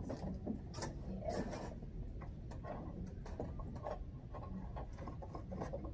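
Scattered light clicks and taps at irregular spacing, two sharper ones about a second in, over a low steady background rumble.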